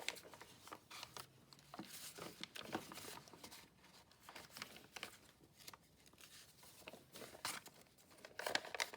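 Faint, irregular rustling and crinkling of paper sheets being handled and gathered together.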